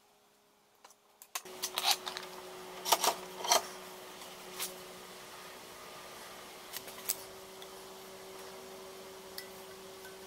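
Sharp knocks and clatter of a metal frying pan being handled in a bench vise, loudest in a cluster a few seconds in, then a few light clicks, over a steady low electrical hum.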